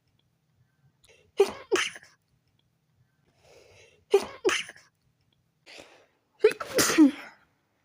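A person sneezing three times in a row in a sneeze attack. The first two sneezes each come as a quick double burst, and short breaths are drawn in before the second and third. The last sneeze, near the end, is longer.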